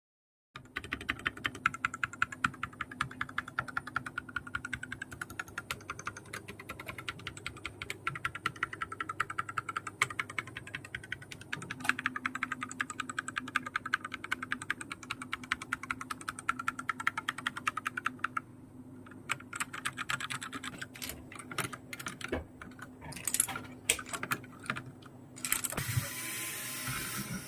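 Keys of a gaming keyboard being typed on rapidly, a fast run of clicks, then slower, scattered key presses in the last third. A steady noise takes over near the end.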